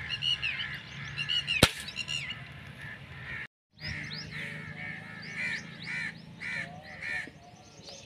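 Crows cawing over and over, with one sharp crack of an air rifle shot about one and a half seconds in and another right at the end. The sound drops out for a moment in the middle.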